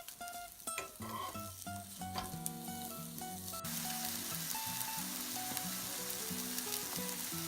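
Food sizzling in a hot frying pan, the hiss starting suddenly about three and a half seconds in and holding steady, with a few light clicks before it. Background music plays throughout.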